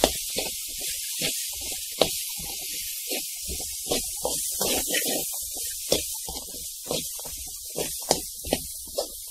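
A metal spoon stirring sprouted pulses in a bowl: a steady rustling hiss with irregular clicks and knocks of the spoon against the bowl, one or two a second.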